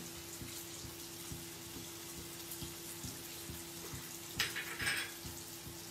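Potato fries and cornflake-coated paneer fingers deep-frying in a wok of hot oil: a steady sizzle of bubbling oil. A brief louder rattle comes about four and a half seconds in.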